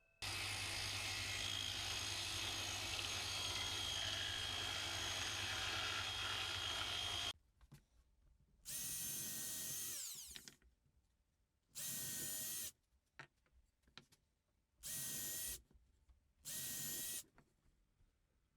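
A power tool runs steadily with a low hum for about seven seconds, then stops. A drill motor follows in four short whining bursts of about a second each, with quiet gaps between, like a drill being triggered in pulses.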